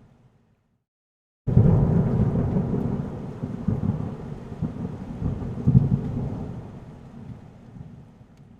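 Thunderstorm with rain and a deep rolling rumble of thunder that starts suddenly after a second and a half of silence, swells in a few peaks, then slowly fades away.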